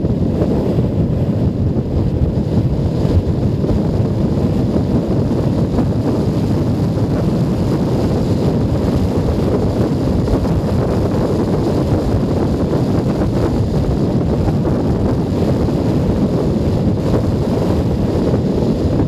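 Steady wind rush buffeting a helmet-mounted microphone on a moving Junak M12 Vintage 125 cc motorcycle, with its engine and road noise mixed in underneath.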